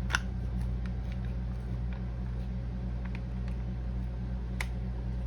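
Microwave oven running, heating a bowl of oatmeal, a steady low hum. Two short light clicks sound over it, one just after the start and one near the end.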